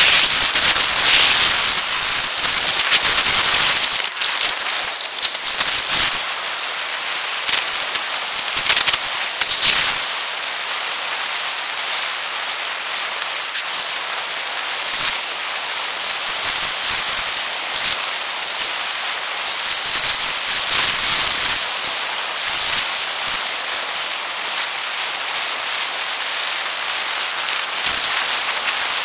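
Ride noise from a moving camera, wind on the microphone and rattling from its mount, sped up about six times into a dense crackling, rattling hiss that swells into louder stretches every few seconds.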